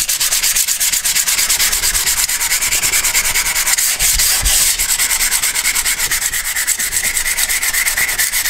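Hand sanding with 400-grit sandpaper on the aluminium rail seat of a CNC router's Y-axis, in quick, even back-and-forth strokes. It is the final smoothing of the mounting surface, so that no dirt sits under the new rail.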